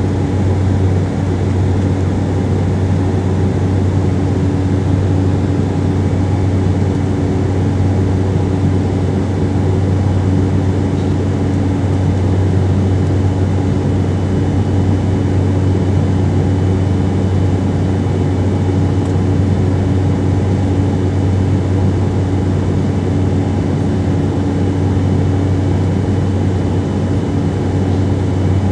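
Steady cabin drone inside an Embraer E190 in flight: the GE CF34-10E turbofan engines and rushing air, a strong low hum with a few faint steady tones above it and an even hiss.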